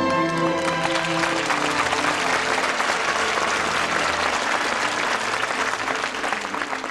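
Theatre audience applauding a ballet lift, the applause swelling as the orchestra's held chord fades away in the first second.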